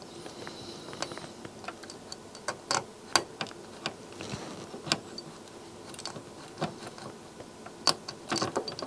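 Irregular small clicks and taps as an STK hybrid amplifier module, on its aluminium heatsink, is pressed and wiggled to seat its pins in the circuit board's holes.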